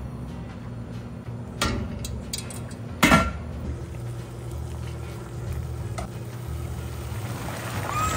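Water heating to a rolling boil in a stainless steel stockpot on a gas burner, a steady low rumble and hum. There are two sharp metallic knocks, about one and a half and three seconds in, the second the loudest.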